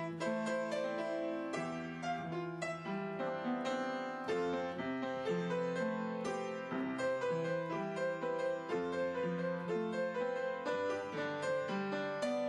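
Piano music, a steady run of notes.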